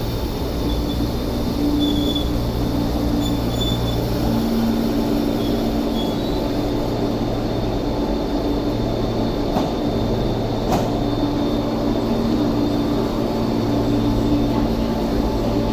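MTR East Rail Line MLR electric train at the platform, giving a steady hum with low tones that fade in and out. There are two sharp clicks about ten seconds in.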